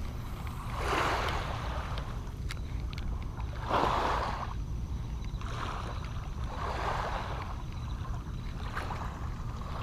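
Wind rumbling on the microphone, with soft swishes every two to three seconds from small waves lapping onto a sandy shore, and a few faint clicks.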